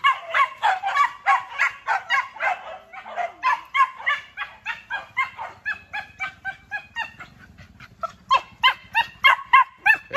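Several hunting dogs barking steadily in quick, overlapping barks, about three a second, louder near the end.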